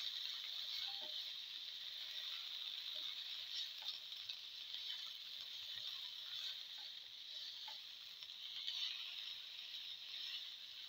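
A spatula stirring and scraping sliced tomatoes, garlic and shallots around a frying pan: small scrapes and clicks over a steady sizzle of frying.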